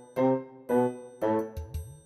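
Background music: pitched chords struck about twice a second, each fading quickly before the next.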